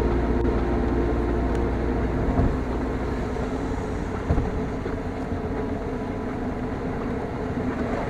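Steady low road and engine rumble of a car driving on a wet highway, heard from inside the car, gradually getting quieter, with two soft knocks a couple of seconds apart in the middle.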